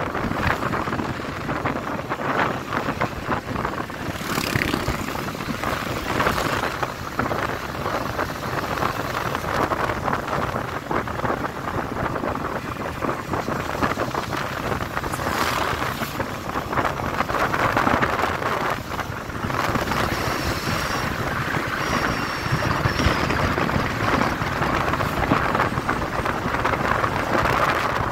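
Wind rushing over the microphone of a moving motorcycle, a steady dense noise, with the motorcycle's engine and tyre noise underneath.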